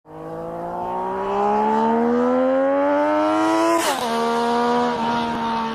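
Triumph Daytona 675 sport motorcycle's three-cylinder engine under hard acceleration, its pitch rising steadily, then dropping sharply as the bike passes close by about four seconds in and holding a steady note as it pulls away.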